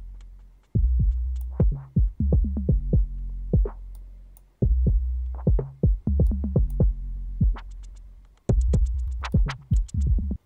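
Electronic drum loop with a low synth bass from a wavetable synth, playing a phrase that repeats about every four seconds. An LFO sweeps Auto Filter's high-cut frequency, so the top end of the hits opens and closes, brightest near the end.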